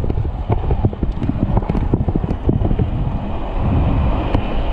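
Speed trikes rolling off the start on asphalt, heard with wind buffeting the action camera's microphone. Many short knocks and clatters come in the first few seconds, then a steady rolling hiss builds as the pack gathers speed.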